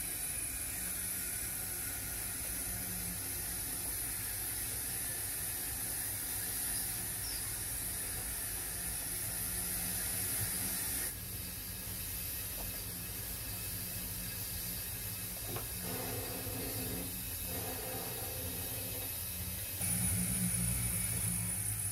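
A 0 gauge model steam locomotive running slowly tender-first along the track. Its motor and wheels give a low hum that grows louder near the end as it comes close, over a steady hiss.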